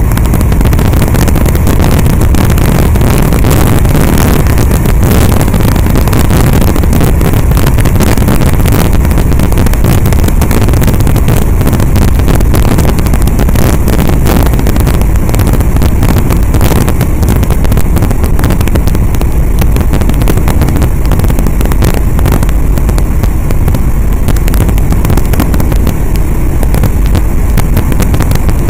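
GA8 Airvan single-engine light aircraft in steady flight: engine and propeller running at a constant pitch, mixed with wind rushing and crackling on the microphone at the open rear door. It stays loud and even throughout.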